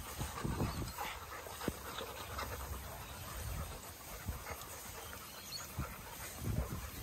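Dogs panting and moving about close by, with soft irregular scuffs and bumps.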